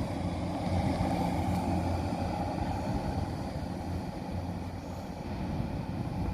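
Diesel multiple-unit train's engine running with a steady low hum, easing off slightly partway through.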